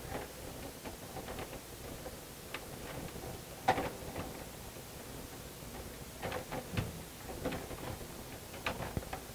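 Faint, scattered clicks and light handling noise of a fluorescent ballast's lead wires being grabbed and twisted together for a wire-nut splice, with a sharper click a little under four seconds in and a small cluster of clicks around six to seven seconds.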